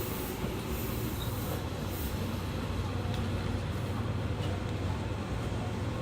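Fukuoka City Subway 2000-series train car running at a steady pace in the subway tunnel: an even rumble of wheels and running gear with a low hum.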